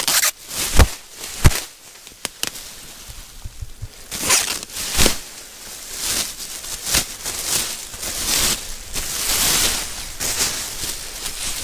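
Clear plastic sheeting being unfolded and pulled open by hand, crinkling and crackling, with sharp snaps in the first couple of seconds and a longer stretch of rustling later on.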